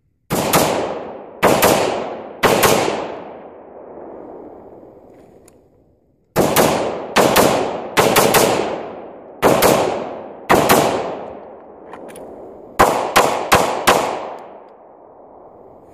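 AR-15 rifle firing single shots: three spaced shots, then after a pause a quicker string of about eight, each followed by a long rolling echo. Near the end, after a short pause, a fast string of four pistol shots, as he transitions from rifle to handgun.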